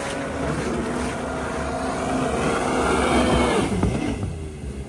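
Mini jet boat powered by a supercharged four-cylinder jet-ski engine running at speed, growing louder as it closes in and passing close by, its pitch dropping sharply as it goes past about three and a half seconds in.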